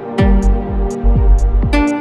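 Electronic background music with a steady kick-drum beat, about two kicks a second, with hi-hat ticks and held synth chords.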